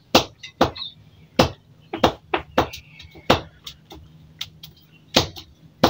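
Close-up wet mouth sounds of a person eating juicy ripe mango: irregular sharp smacks and sucking clicks as she bites and sucks the flesh off a piece of skin, roughly one or two a second.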